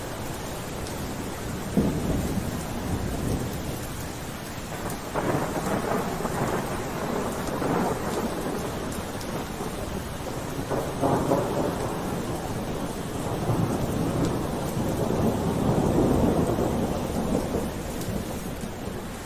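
Steady rain with several rolls of thunder rumbling over it: a short one about two seconds in, a longer one from about five to eight seconds, a brief one near eleven seconds, and a long swelling roll in the second half that dies away near the end.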